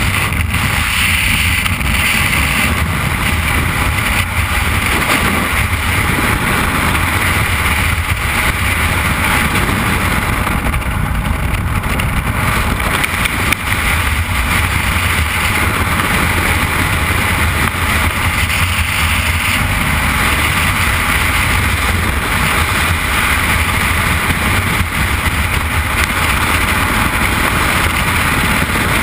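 Freefall wind rushing over a skydiver's camera microphone: a loud, steady rush of air noise with a deep low rumble.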